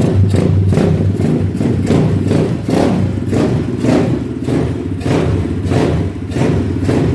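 Zongshen 250cc single-cylinder four-stroke dirt bike engine running just after starting, its speed and loudness rising and falling unevenly. It runs without choke on a freshly rebuilt top end with a new piston.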